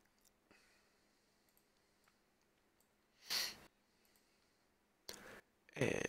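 A person breathing out sharply once, about halfway through, against near-quiet room tone with faint clicks; a shorter breath follows shortly before speech resumes.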